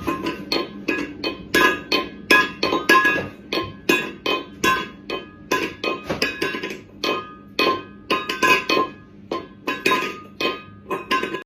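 Background music: a melody of short, ringing plucked notes, about two a second, with no drum beat.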